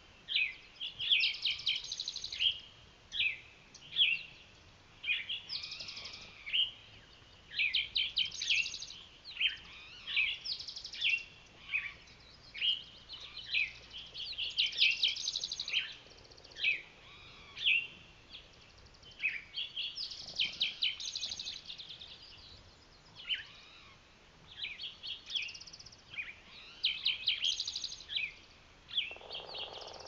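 Several songbirds singing in an overlapping morning chorus: short phrases of quick down-slurred notes and fast trills, a new phrase every second or two.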